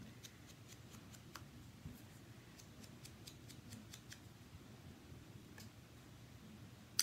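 Faint, scattered small clicks and taps of paper and craft tools being handled on a worktable, over a low steady hum.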